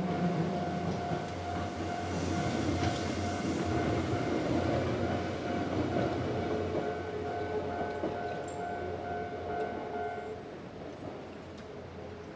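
Level-crossing alarm ringing steadily in an even repeating tone while a Nankai electric train runs over the crossing. The alarm stops about ten seconds in, and the train noise fades.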